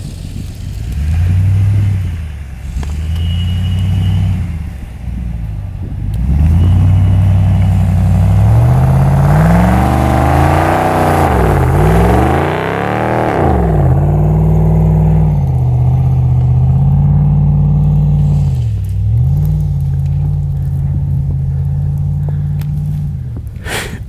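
Dodge Ram 2500 Power Wagon's 6.4-litre HEMI V8 revving hard as the truck ploughs through deep snow: a few short revs, then a climb to a peak with quick up-and-down revs about halfway, then high steady revs with one brief dip. A sharp knock just before the end.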